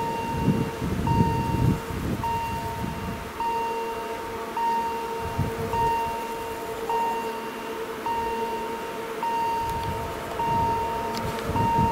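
Level crossing warning signal beeping steadily about once a second. Under it, a low rumble fades after about three seconds and returns near the end.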